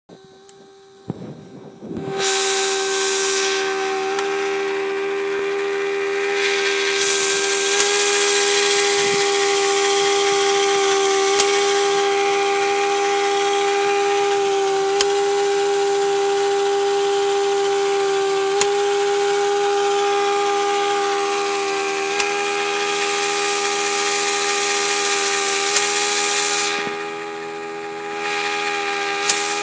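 Pneumatic pipe bevelling machine starting up about two seconds in and running: a steady whine from the air motor over the hiss of exhaust air, as its cutter bevels a steel pipe end. A sharp tick comes every few seconds, and the sound dips briefly near the end.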